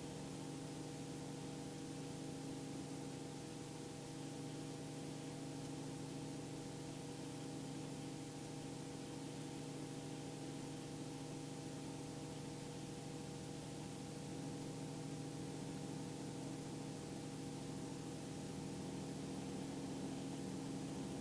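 Faint, steady in-flight drone of a Robinson R44 II helicopter, its engine, gearbox and rotors making a hum of several steady tones over a hiss, growing slightly louder in the last few seconds.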